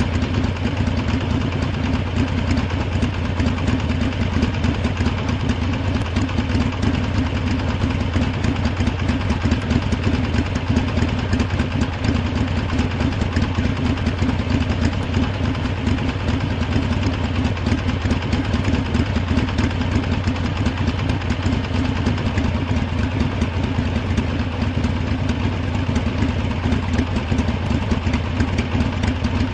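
Harley-Davidson motorcycle engine idling steadily, its low even beat holding unchanged with no revving.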